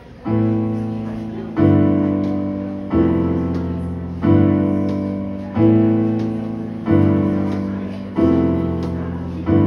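Electronic keyboard with a piano sound playing slow, sustained chords, one struck about every 1.3 seconds and each fading away before the next.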